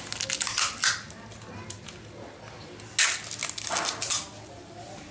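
Crinkling and rustling handling noise from a roll of tape and its plastic wrapping being handled, in two spells: one near the start and a louder one starting sharply about three seconds in.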